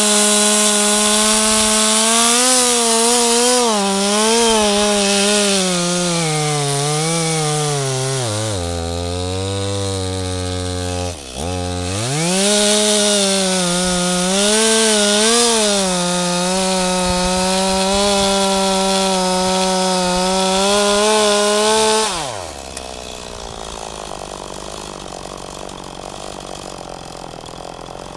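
Two-stroke chainsaw running at high revs, its pitch sagging and recovering repeatedly under load. About a third of the way in it drops to idle for a couple of seconds, then revs back up, and near three quarters of the way through it falls back to a much quieter low idle.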